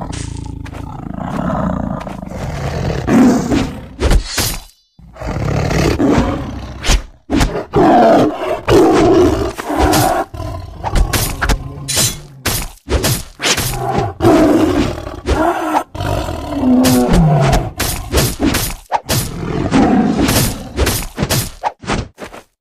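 Big cats growling and roaring at each other: a run of snarls and roars spliced together with abrupt cuts and a few brief silent gaps.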